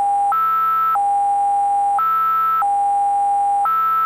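Synthesized emergency alert attention tone opening a fan-made Emergency Alert System broadcast: a buzzy electronic tone switching back and forth between a lower pitch held about a second and a higher pitch held about half a second, stepping up three times.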